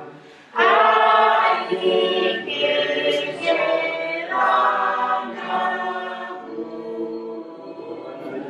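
A group of voices singing together a cappella, with no instruments. There is a short lull right at the start before the voices come in strongly about half a second in.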